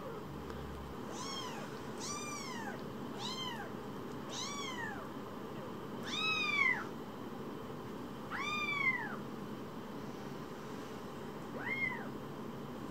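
Young tabby kitten mewing repeatedly: about seven short, high calls, each rising and then falling in pitch, spaced a second or two apart. The two calls about six and nine seconds in are the loudest.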